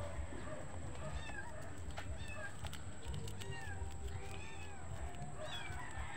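Four-month-old kitten meowing repeatedly in short, high calls that rise and fall, with one longer meow about four seconds in.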